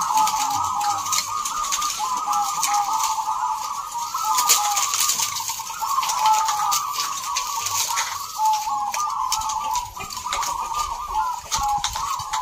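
Many caged zebra doves (perkutut) cooing at once, a dense chorus of short overlapping notes that never pauses.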